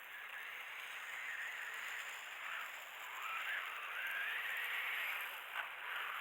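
Small electric motor of a radio-controlled ATV whining, its pitch rising and falling as the throttle changes.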